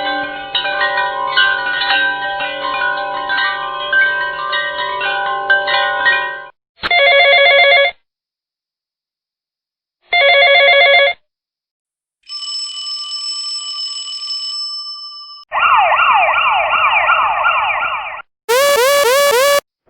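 A run of separate sound effects: bells ringing in overlapping tones for about six seconds, then two short, loud electronic phone rings a few seconds apart, and a steady high electronic tone. It ends with a fast-warbling siren of rapidly repeating falling sweeps, then a quick repeating rising whoop like a warning alarm.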